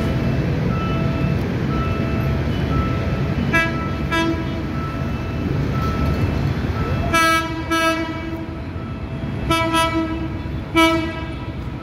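PNR train built by INKA sounding its horn as it approaches: two short toots about three and a half seconds in, then several longer, louder blasts from about seven seconds on. Under it, a level-crossing warning beep repeats quickly over traffic noise.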